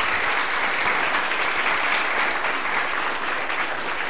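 Audience applauding in a lecture hall, a steady round of clapping that eases off near the end.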